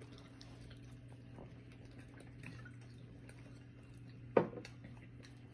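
Quiet table sounds: faint clinks of tableware and serving ladles over a steady low room hum, with one sharp clink or knock against a plate about four and a half seconds in.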